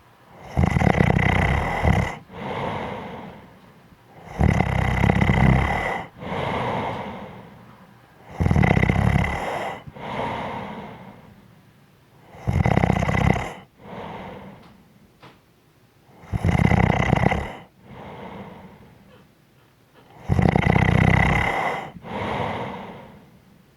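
A person snoring in a steady rhythm, one breath cycle about every four seconds. Each cycle is a loud, low snore lasting a second or so, followed by a softer, breathy sound.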